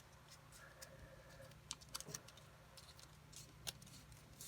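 Faint crackles and ticks of a sheet of paper being folded and creased by hand, scattered irregularly over a low steady hum.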